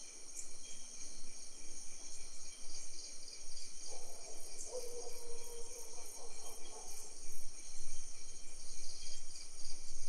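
Night insect chorus of crickets: several steady, layered high-pitched trills. About four seconds in, a lower-pitched animal call sounds for about three seconds.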